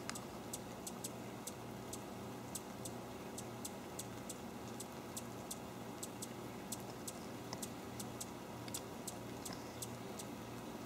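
Light rain falling: a steady hiss with irregular sharp ticks, about two or three a second, of drops striking close by.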